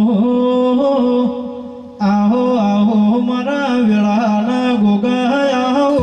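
Devotional folk singing: a voice sings a winding, ornamented melody over a steady held drone note. The singing fades away about a second and a half in and comes back at full strength at the two-second mark.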